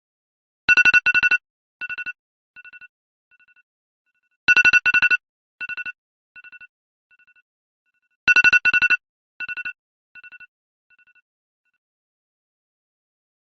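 iPhone alarm tone ringing in a repeating cycle, three times here, about every four seconds: two loud bursts of rapid high beeps, then a string of shorter repeats that fade away like an echo.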